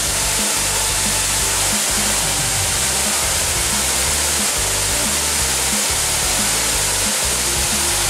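Steady roar of a tall waterfall pouring down rock, a strong even hiss, with background music playing over it.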